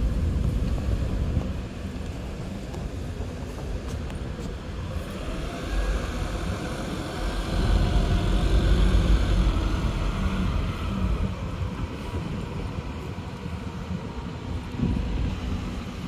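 Volvo B7RLE diesel city bus driving past close by. Its engine rumble swells to its loudest about halfway through, with a whine that rises and then falls in pitch, then fades as it moves away.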